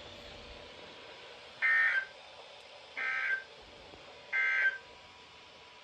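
Three short bursts of SAME digital data tones on a NOAA Weather Radio broadcast, sent about a second and a half apart over faint hiss: the Emergency Alert System end-of-message (EOM) code closing the weekly test.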